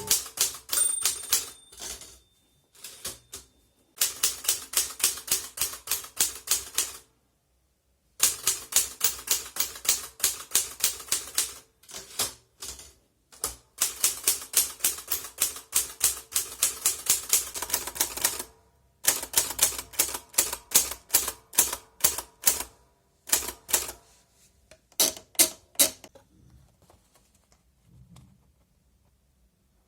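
Erika model 40 manual typewriter being typed on: sharp keystrokes in runs of about three to four a second, broken by short pauses. They thin out and stop near the end.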